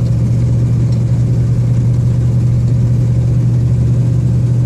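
Car engine and road noise heard from inside the cabin while driving slowly: a steady low hum with an even rumble above it.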